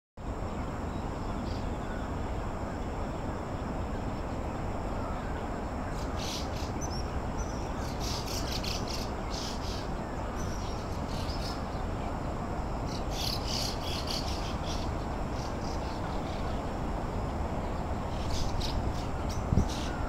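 A flock of small birds chirping in short scattered clusters, several times, over a steady low background rumble.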